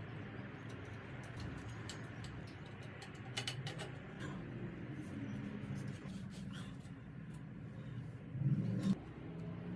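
Scattered small clicks and taps of bike parts being handled during the dropper lever install, over a low steady hum, with a louder bump near the end.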